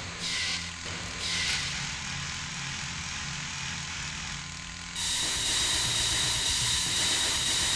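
Sound effects for a giant flying mechanical creature: a low mechanical hum with two short hissing whooshes, then about five seconds in a sudden, louder jet-like hiss with a high whine that holds steady.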